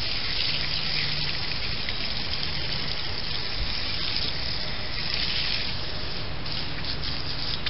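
Garden hose spray hitting an Intex pool filter cartridge, a steady rush of spraying water washing grit out of the cartridge's pleats.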